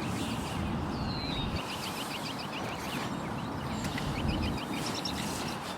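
Small birds singing in runs of quick, high repeated chirps, with a brief falling whistle about a second in, over a steady outdoor noise haze.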